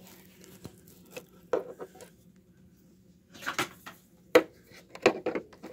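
Hands handling a computer monitor and its metal stand close to the microphone: scattered clicks and knocks of hard parts, a few around one and a half seconds in and more from about three and a half seconds, the sharpest click a little after four seconds.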